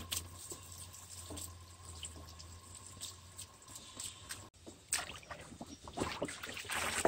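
Faint trickling and lapping of water in a large plastic basin where whole chickens are soaking, turning to sharper splashing in the last two seconds as a hand moves the chickens about in the water.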